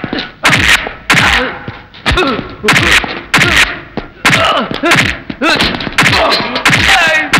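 Dubbed film fight sound effects: a rapid series of punch and kick whacks, about two a second, each sharp hit trailed by a low thud that falls in pitch, mixed with men's grunts.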